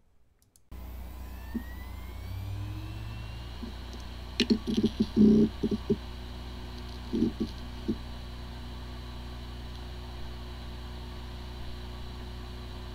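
Hard disk drive powering up: the spindle motor spins up with a rising whine, the heads click and seek in a quick cluster about four to six seconds in and a few times more a little later, then the drive settles into a steady spinning hum. It sounds like a healthy drive, yet this one has disk firmware corruption and the computer cannot detect it.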